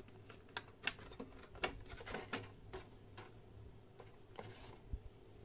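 Thin clear plastic packaging tray crackling and clicking as an action camera in its waterproof housing is worked out of it: a quick run of sharp clicks in the first three seconds or so, then only a few.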